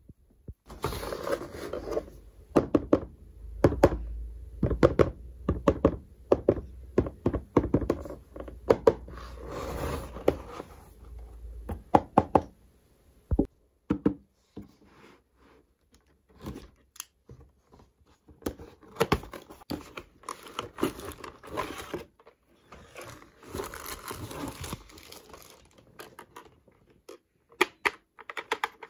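Miniature plastic toy appliances and their packaging being handled and unboxed: many sharp knocks and taps of plastic pieces, mixed with crinkling of wrapping.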